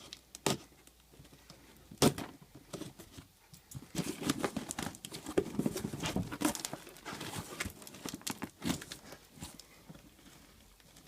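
Packing tape being cut and a cardboard box handled while being opened: a couple of sharp knocks, the loudest about two seconds in, then several seconds of scratching, tearing and crinkling.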